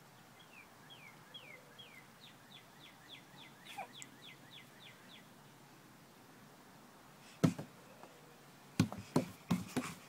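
A songbird singing a run of short, high, falling whistled notes that come faster and faster, then stops. Near the end come several loud knocks and bumps.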